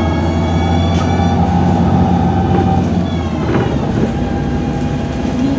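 MAZ 203 city bus heard from inside the cabin while under way: the drivetrain gives a steady whine over a low drone. About three seconds in, the drone eases and the whine falls in pitch as the bus comes off the throttle.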